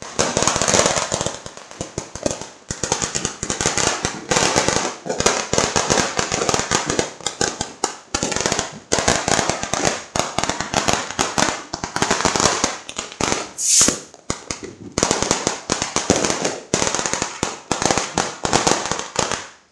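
Firecrackers going off in dense, rapid strings of sharp bangs and crackles, one after another without a break, with a louder burst about fourteen seconds in.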